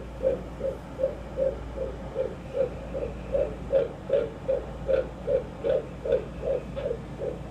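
Fetal heartbeat at 17 weeks picked up by a Doppler monitor: rapid, even whooshing beats about two and a half a second, around 155 a minute, which is a normal fetal heart rate, over a steady low hiss.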